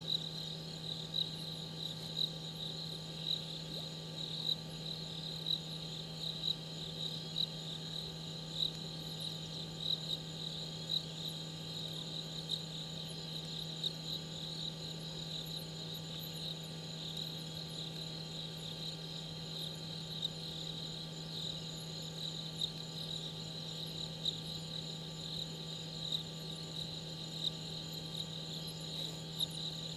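Night insects chirping in a steady high-pitched trill, with regular louder pulses about once a second, over a steady low hum.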